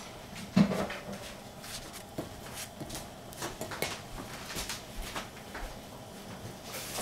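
Strawberries being cut with a knife over a small stainless steel saucepan, the pieces dropping onto the bare bottom of the pan: a run of light clicks and taps, with one louder knock just over half a second in.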